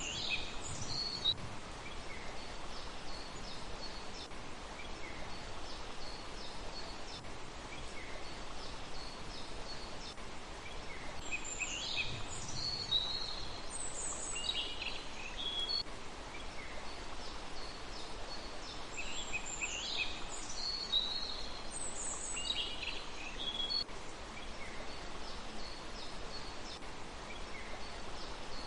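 Small birds calling in short clusters of high, quick chirps and sliding notes, a few seconds apart, over a steady outdoor hiss.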